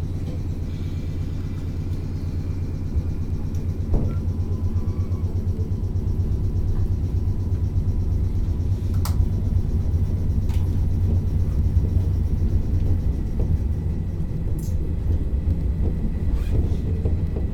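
Passenger train running, heard from inside the car: a steady low rumble of wheels on rail, with a few sharp clicks and knocks scattered through it.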